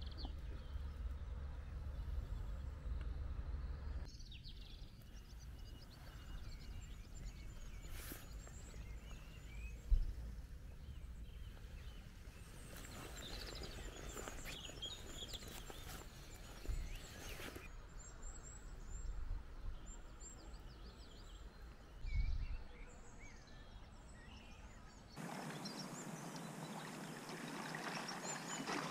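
Songbirds chirping and singing over a low rumble, with two brief low knocks. Near the end a steady rush of river water comes in, louder than the birds.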